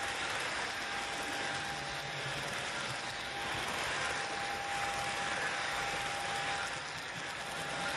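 Fleischmann model low-loader freight wagons rolling past on the track: a steady rushing of small metal wheels on rails, with a faint steady whine that comes and goes.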